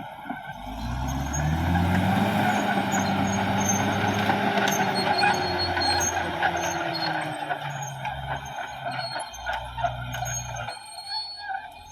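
Caterpillar D6R XL bulldozer's diesel engine revving up about a second in and pulling steadily under load, then easing back and dropping in pitch near the end. Metallic squeaks and clicks can be heard throughout.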